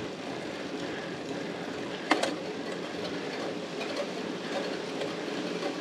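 Road bike climbing on wet asphalt: steady noise of the tyres and drivetrain. One sharp metallic click that rings on briefly about two seconds in.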